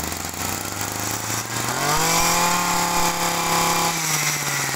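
Small Komatsu Zenoah 23 cc two-stroke brush cutter engine running. About a second and a half in its speed rises and then holds steady at the higher speed.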